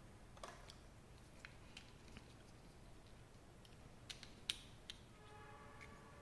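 Faint, scattered small plastic clicks, the loudest about four and a half seconds in, then a short creak near the end, as the joints of a 1/12 scale action figure are moved.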